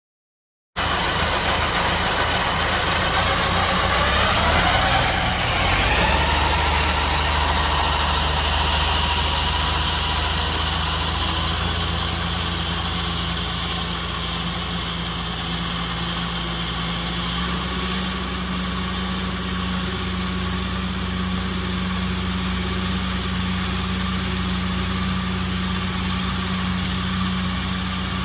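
Tractor engine running steadily while driving a New Holland rotary disc mower that is cutting alfalfa. The sound starts abruptly about a second in, and a whine rises in pitch about five seconds in.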